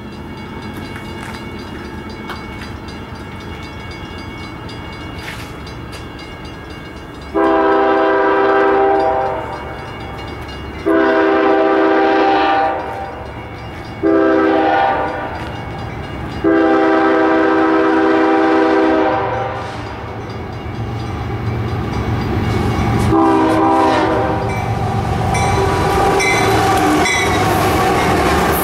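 Canadian Pacific freight train led by a GE ES44AC diesel locomotive approaching: its air horn sounds the long-long-short-long grade-crossing warning, then the diesel engines' rumble grows louder as the locomotives pass, with one more short horn blast near the end.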